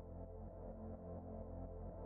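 Ambient electronic music of sustained low synth tones, slowly growing louder.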